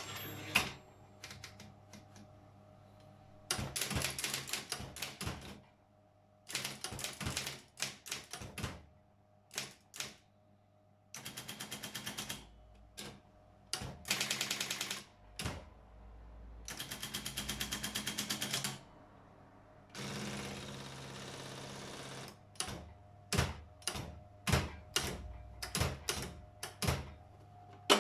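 Brother electric 4612 typewriter typing: clusters of sharp keystrokes, several runs of fast evenly repeated strikes, and a steady whir for about two seconds around twenty seconds in, over the low hum of its motor.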